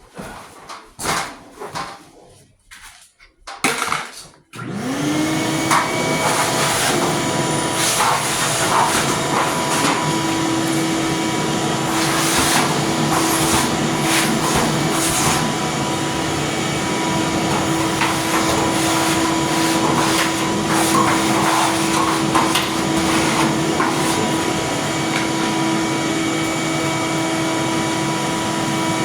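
A few seconds of handling clatter, then a vacuum cleaner switches on about four and a half seconds in. Its motor spins up with a brief rising whine and then runs steadily.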